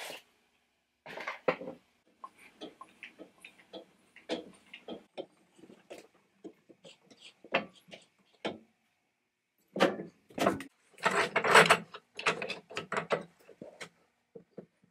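Irregular metallic clicks, clanks and knocks of tools and mill parts being handled while a log is set up and clamped on a bandsaw sawmill, with a denser, louder run of knocks about two-thirds of the way in.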